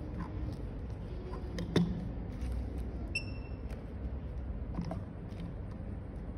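A sharp click about two seconds in, as a replacement phone screen's flex-cable connector is pressed onto a tester board. About a second later comes a short, high electronic beep, over a low steady background hum and a few faint handling ticks.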